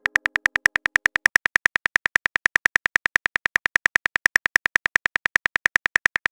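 Phone keyboard typing clicks, rapid and evenly spaced at about ten a second.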